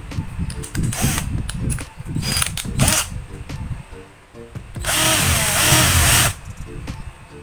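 Cordless drill running for about a second and a half, boring a hole through the moulded shell, its pitch dipping briefly as the bit bites. Before it come scattered knocks and handling clatter.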